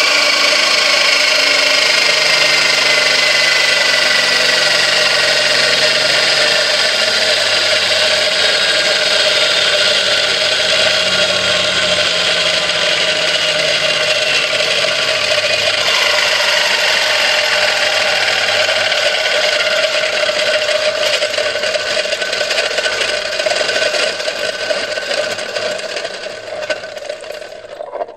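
A high-speed train of 3D-printed plastic gears in a fluid-filled housing, driven by a motor, making a loud whirring rattle with whines that slowly fall in pitch. Some gears have already lost teeth. The sound fades over the last few seconds as the gears slow, then cuts off.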